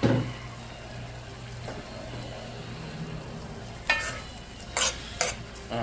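Curried egg bag sizzling in a pot on the stove over a steady low hum, then a metal spoon stirring it and scraping and knocking against the pot a few times in the last two seconds.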